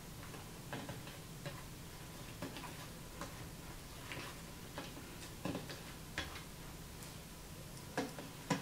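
Slime being kneaded and folded by hand, making irregular small clicks and pops a few times a second, the two loudest near the end.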